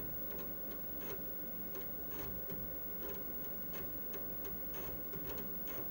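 Commodore Amiga 2000's internal 3.5-inch floppy drive reading a disk: the read head steps across the tracks in irregular sharp clicks, about three or four a second, over a low steady hum.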